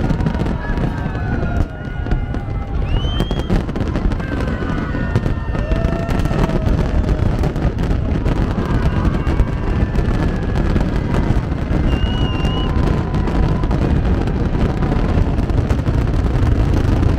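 Fireworks display: a continuous low rumble of booms with many sharp pops and crackles, and scattered high wavering tones over it.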